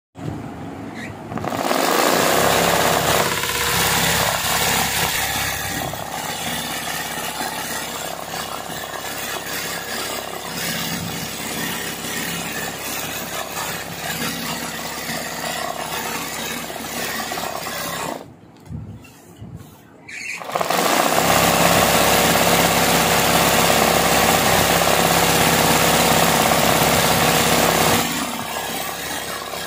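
Electric sewing machine running at speed for free-motion embroidery, its needle stitching through hooped fabric. It stops for about two seconds a little past the middle, then starts again.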